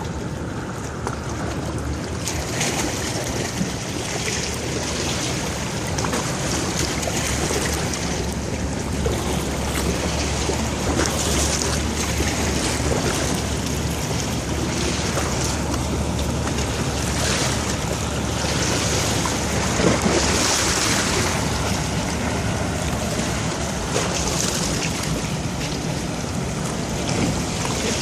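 Wind buffeting the microphone in gusts over a steady wash of water, with a low steady rumble through the first half.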